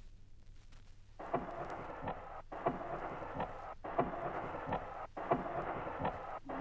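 Vinyl playback of a lo-fi ambient field recording of water: a muffled noisy wash with frequent small clicks, starting about a second in after faint groove noise. It is cut into looped segments by brief dropouts roughly every second and a half.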